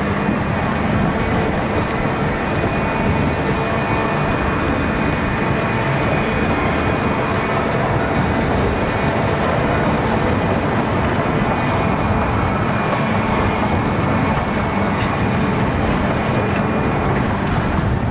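Paratrooper fairground ride running: a loud, steady mechanical drone with a constant low hum.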